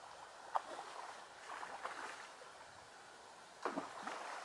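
Water splashing in brief bursts: a sharp splash about half a second in, looser splashing in the middle, and two louder splashes near the end.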